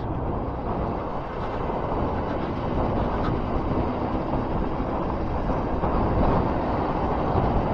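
Honda Fireblade's inline-four engine running steadily at town speed, mixed with wind and road noise on the rider's microphone.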